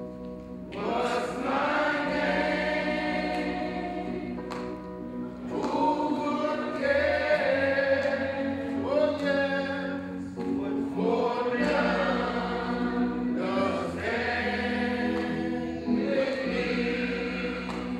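Group singing of a hymn with a man's voice leading, in long held phrases over steady instrumental chords that change every few seconds.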